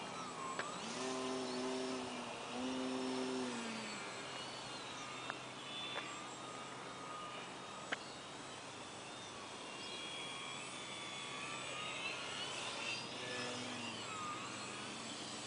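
Electric motor and propeller of a small radio-controlled 3D foam plane whining, the pitch rising and falling as the throttle changes. A few sharp clicks sound in the middle.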